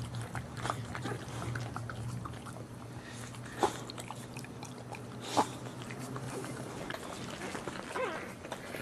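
Boxer mother licking her newborn puppies: a run of wet licking and smacking, with two sharper, louder smacks in the middle.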